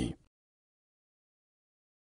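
Digital silence, after the last word of a narrator's voice trails off just at the start.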